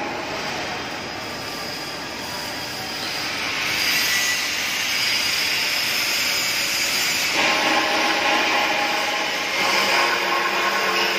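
Steady hissing crackle of arc welding on steel beams, with workshop machinery noise under it. The sound changes character about 3.5 s in and again about 7.5 s in.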